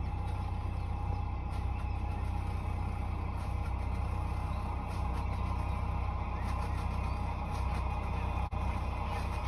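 Boat's inboard engine running steadily, a low hum.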